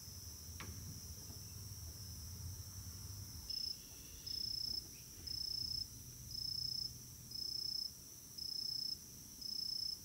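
Insects trilling in a steady high drone. About three and a half seconds in, a rhythmic chirp joins: half-second pulses at the same high pitch, about one a second. A brief falling whistle sounds near the start.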